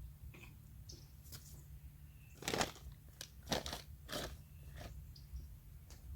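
About five short crunching scrapes, under a second apart, over a steady low hum.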